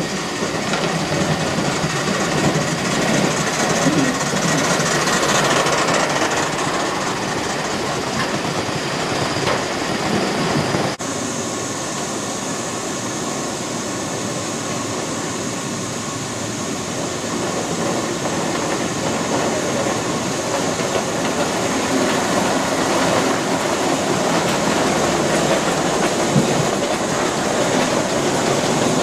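Gauge 1 model trains running on the layout track, a continuous rolling rumble and clatter of wheels over rail joints. The sound changes abruptly about eleven seconds in.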